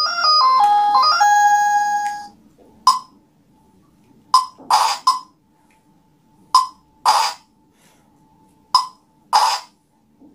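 Electronic game sounds from a children's toy learning laptop: a short beeping melody of stepped tones, then short electronic blips every second or so, often two or three close together, over a faint steady whine.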